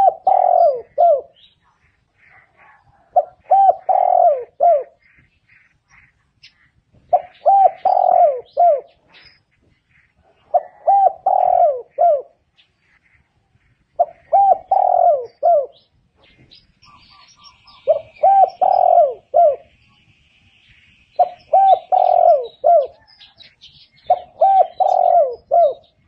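Spotted dove singing: a phrase of three or four low coos repeated about every three and a half seconds, eight times over. Faint chirps of small birds sound between the phrases.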